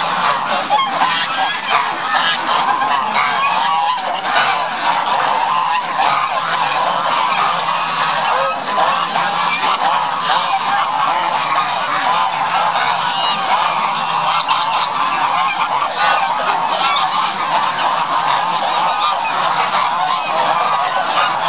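A large flock of domestic geese honking continuously, many calls overlapping at once.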